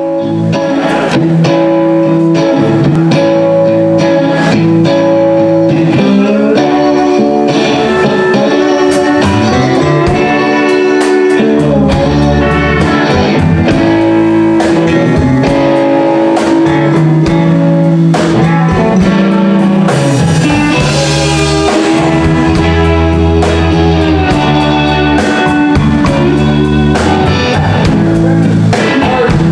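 Live blues band playing an instrumental passage: two electric guitars, electric bass and drum kit.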